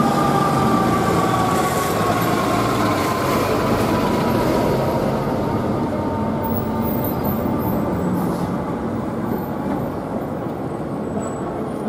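A fire engine's siren sliding slowly down in pitch and fading out over the first few seconds, over the steady rumble of the fire truck and street traffic as the engine pulls away.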